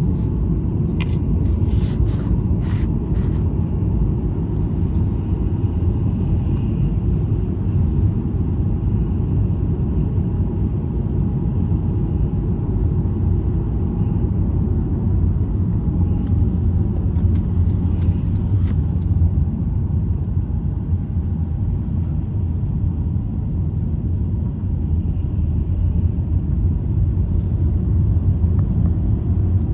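Steady low rumble of a car's engine and tyres on the road, heard from inside the moving car, with a few faint clicks near the start and about halfway through.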